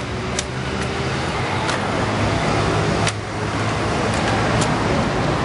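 Steady rumble of road traffic, with a few sharp clacks of rifles being slapped and spun in silent precision drill, the strongest about three seconds in.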